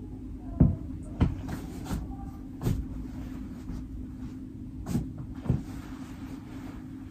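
Scattered soft knocks and thumps, about half a dozen, from things being handled and set down while a bed is tidied, over a steady low hum.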